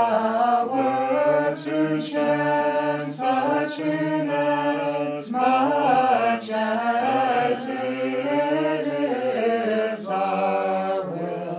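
Voices singing an unaccompanied Znamenny chant carol in English, with long held notes moving slowly in pitch.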